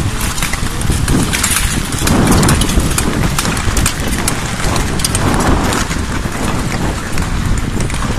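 Ice skates' blades scraping and cutting the ice in strokes as a pack of marathon skaters skates at speed, with many short sharp ticks throughout.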